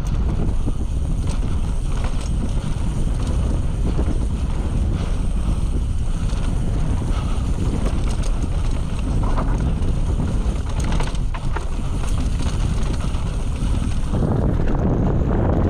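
Mountain bike riding fast down a dirt singletrack: wind buffeting the GoPro microphone over tyre rumble, with scattered sharp clicks and rattles from the bike. The rumble grows louder and rougher near the end.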